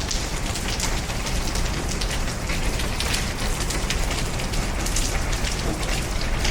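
Heavy typhoon rain falling steadily: an even hiss with many small, sharp drop hits.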